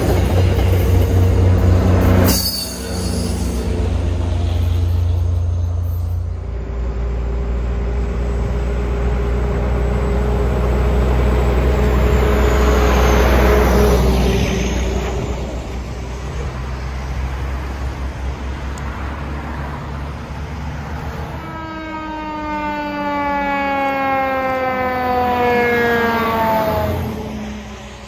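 An MBTA commuter train rolling past on the rails, cut off suddenly about two seconds in. Then a tractor-trailer's diesel drives past on the road, its low rumble building to a peak around the middle. Near the end comes a loud pitched tone with overtones that slides slowly down in pitch for about five seconds.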